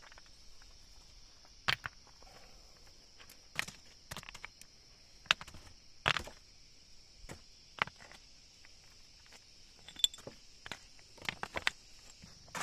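Scattered sharp knocks and taps at irregular gaps, roughly a second or two apart, over a steady high drone of insects.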